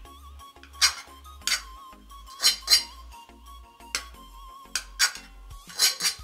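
Metal tongs and a slotted ladle clinking against metal serving trays and plates during plating, about eight sharp, irregular clinks. Background music with a steady beat plays underneath.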